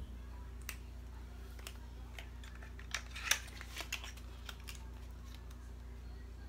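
Scattered small clicks and taps of plastic lip gloss tubes and packaging being handled, the loudest about halfway through, over a steady low hum.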